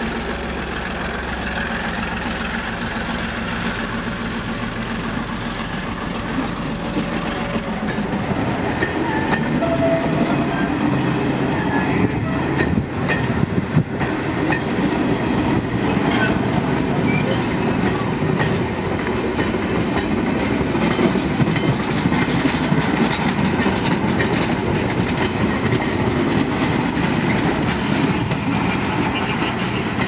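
GR12 diesel-electric locomotive's engine running as it pulls away, followed after about eight seconds by the wheel noise and clickety-clack of double-deck passenger coaches rolling past.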